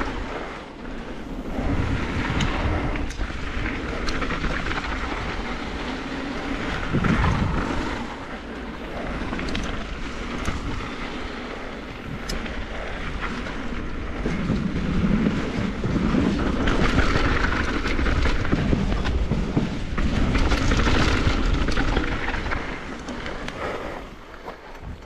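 Mountain bike riding fast down a dirt trail: tyres rolling over dirt and gravel, the bike rattling and clattering over bumps, over a steady rushing noise. It quietens near the end as the bike slows on a gravel track.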